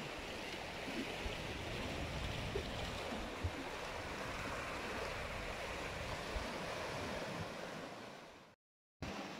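Ocean surf washing over a rocky shore, a steady rush of water with a few faint low thumps. It fades out near the end into a brief silence, then comes back.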